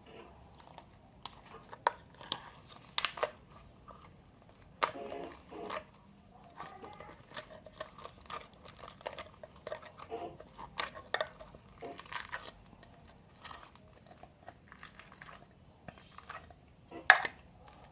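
Homemade slime being squeezed and poked by hand, giving irregular wet clicks and crackling pops, with one sharper crack near the end.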